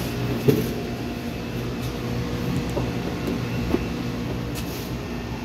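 A steady low mechanical hum, with a sharp click about half a second in and a second click near four seconds as the car's driver door is opened.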